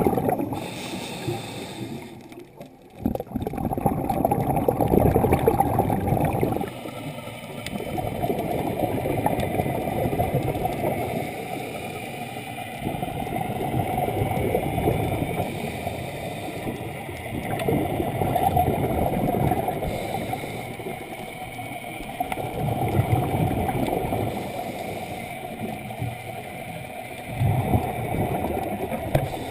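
Water gurgling and churning, swelling and easing about every four to five seconds, with a brief drop about two to three seconds in.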